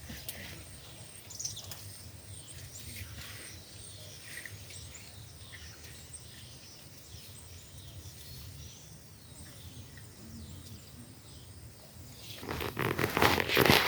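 Quiet outdoor ambience: faint scattered bird chirps over a low steady rumble. About twelve seconds in, a sudden loud rustling and scraping noise starts and becomes the loudest sound.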